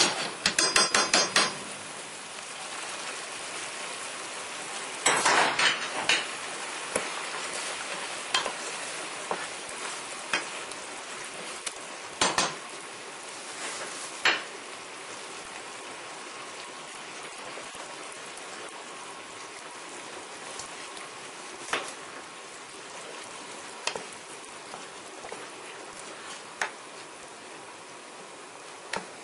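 Wooden spatula stirring a simmering curry sauce in a stainless steel pot. It knocks against the pot in quick runs near the start and again about five seconds in, then with single knocks every few seconds, over a steady hiss from the simmering sauce.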